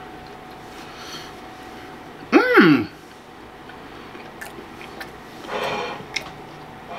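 A man eating a taco with his mouth closed: a short voiced hum from the throat about two and a half seconds in, rising then falling in pitch, over faint mouth and chewing noise. A brief breathy noise near six seconds.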